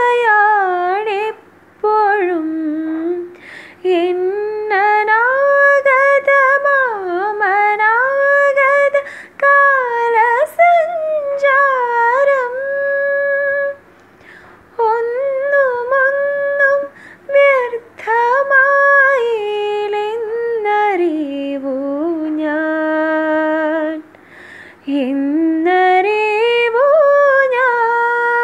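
A woman singing solo with no accompaniment, in long held notes that glide and waver between pitches, with short breaks between phrases.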